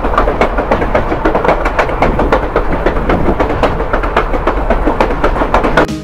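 Passenger train running on the rails, a heavy low rumble with an irregular clatter of wheels over the track.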